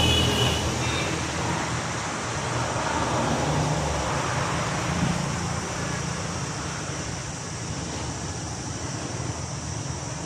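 Road traffic rumble, loudest near the start as a vehicle passes, with a faint steady high-pitched drone underneath.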